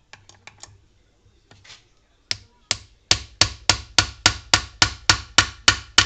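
Repeated sharp knocks: a few scattered single ones, then about three seconds in a steady run of about three a second.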